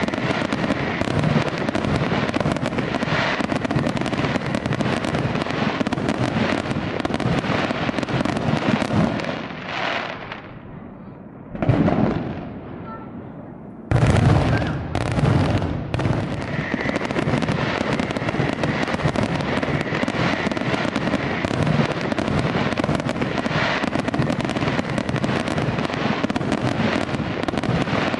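Fireworks display: aerial shells bursting in a dense, continuous run of overlapping bangs and crackle. It drops to a quieter stretch about ten seconds in, then a sudden loud burst about fourteen seconds in starts the barrage again.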